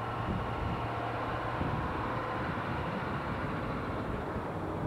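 School buses driving past on a road: a steady engine rumble with road noise.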